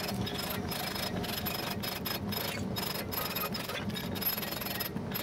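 Electric jigsaw running and cutting through layered plywood: a steady sawing rasp with a thin high motor whine above it.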